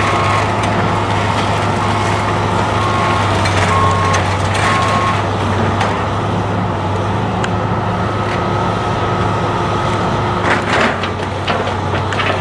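Heavy demolition machinery running with a steady diesel drone. Its reversing alarm beeps about once a second for the first five seconds. A burst of cracking and crunching comes near the end.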